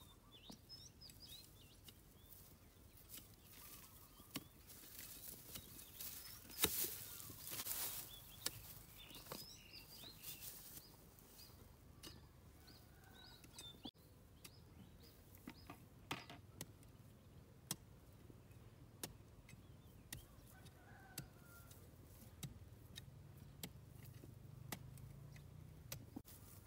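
Dry grass and stubble crackling and rustling under footsteps and handling, with a louder rustle about seven seconds in and scattered sharp clicks throughout. Faint bird calls chirp in the background.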